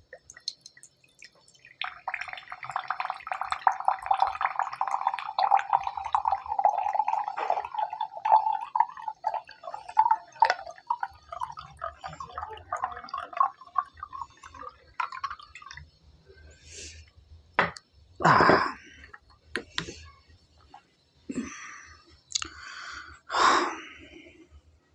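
Vodka glugging from a glass bottle into a drinking glass for about thirteen seconds, its pitch rising slowly as the glass fills. It is followed by several separate short knocks, the loudest about eighteen seconds in.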